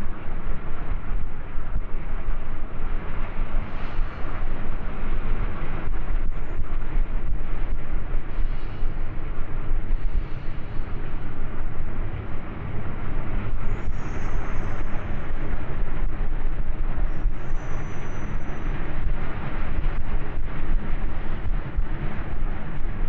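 Norfolk Southern diesel freight locomotives running past close by: a steady heavy rumble of engines and wheels on the rails, with two faint brief high-pitched squeals in the second half.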